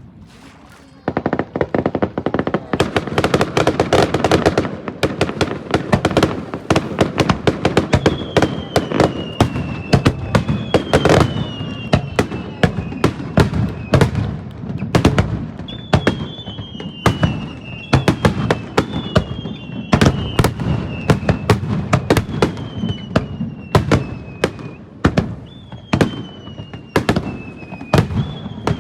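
Fireworks display: after a quiet first second, a dense barrage of bangs and crackling bursts goes off. From about a quarter of the way in it carries repeated falling whistles, roughly one every two seconds.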